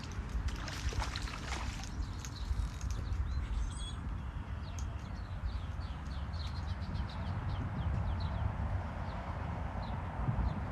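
Small birds chirping in short, irregular notes over a steady low rumble.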